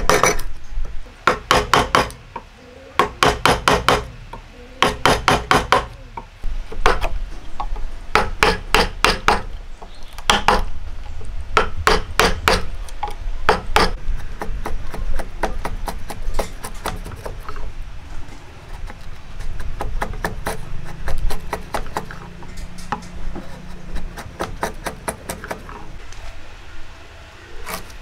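Steel wood chisel being struck into hardwood, sharp taps in quick clusters of four to six, chopping along a mitre joint. About halfway through, the taps give way to quieter scraping and light tapping as the chisel pares wood out of the joint.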